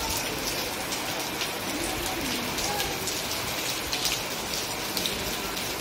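Steady rain falling, with individual nearby drops tapping now and then.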